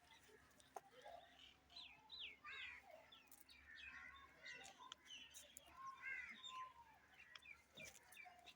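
Faint chirping of small birds: many short, quick calls overlapping throughout.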